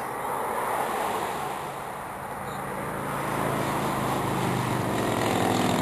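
Engine rumble with a low steady hum, growing louder toward the end.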